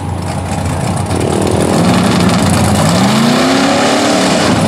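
Lifted mud-bog pickup's engine under hard throttle as its mud tires spin through the pit, the engine pitch holding steady and then climbing in repeated rising surges from about halfway through, with mud spraying off the tires.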